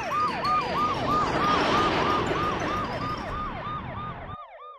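Police siren sound effect: a fast repeating wail of quick falling-and-rising sweeps, about three a second, with a rushing noise under it in the middle. It fades away near the end.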